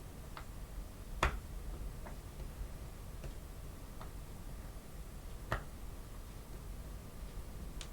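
Small parts of an N gauge model locomotive chassis clicking and tapping as spacers are fitted by hand: about seven separate light clicks, the loudest about a second in and another about halfway through.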